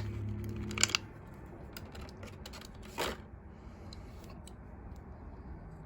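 Scattered light clicks and taps of a small die-cast toy truck and its plastic packaging being handled, a sharper click about a second in and another about three seconds in.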